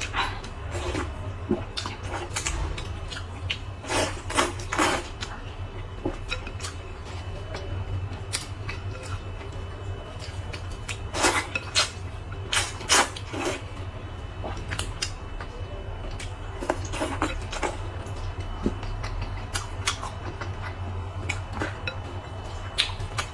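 Eating utensils clicking and clinking against a bowl, in scattered sharp knocks that come in small clusters, over a steady low hum.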